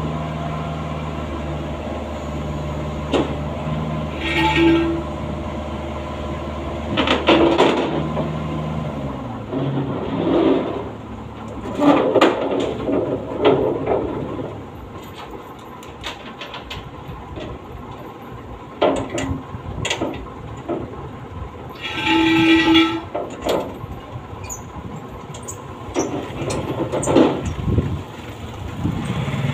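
A diesel engine idling, which winds down and stops about nine seconds in. Then come repeated metal clanks and rattles as the flatbed truck's steel loading ramps are raised and secured, with two brief squeaks. A motorcycle engine approaches near the end.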